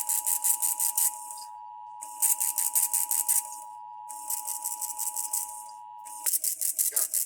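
Emergency Alert System SAME header: short buzzy, screeching bursts of digital data, each about a second long, repeating about every two seconds, four in all, with a faint steady tone beneath. These bursts encode the alert, here a Required Monthly Test, ahead of the attention tone.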